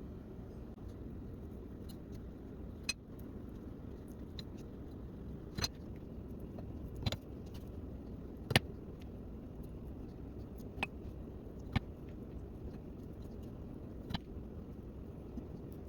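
About eight sharp, light clicks and taps at irregular intervals, the loudest near the middle, over a steady low background hum.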